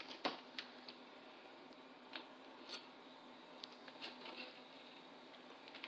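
Faint scattered clicks and taps of metal forks on paper plates as pieces of cake are cut off, over a faint steady hum.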